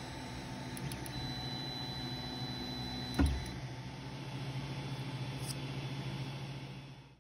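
Ender 3 Pro 3D printer's cooling fans running with a steady hum, with a thin high whine from about one to three and a half seconds in. A single knock just after three seconds, and the sound fades out at the very end.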